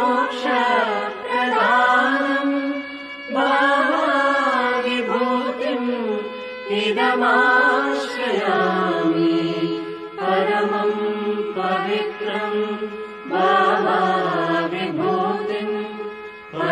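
Devotional chanting sung to music, a melodic phrase repeated about every three seconds.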